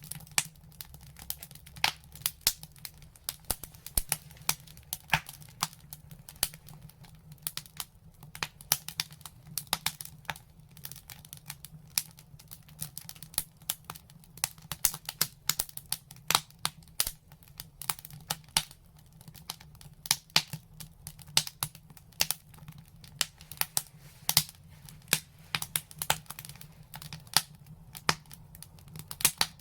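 Fire in a fireplace crackling: irregular sharp pops and snaps, several a second, over a faint steady low rumble.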